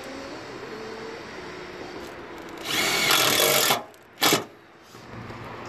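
Cordless drill driving a screw into sheet metal: one run of about a second, then a short second burst to seat it.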